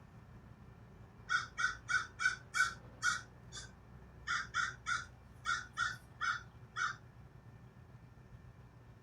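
A bird calling: two quick runs of about seven short calls each, with a brief pause between them.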